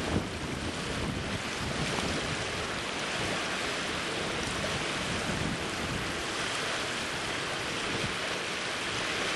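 Steady wind buffeting the microphone over open water, with waves washing and splashing.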